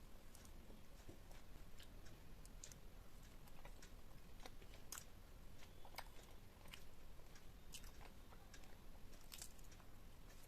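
Faint close-miked eating sounds: a person biting and chewing food, with scattered crisp clicks and crunches at irregular moments.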